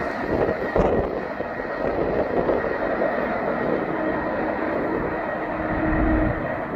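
Double-stack intermodal freight train rolling away down the track: the steady rolling noise of its cars' wheels on the rails, with a thin steady high ring above it.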